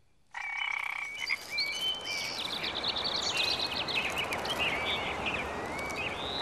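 Outdoor nature ambience of frogs croaking, with many short high chirps and whistles over a steady hiss.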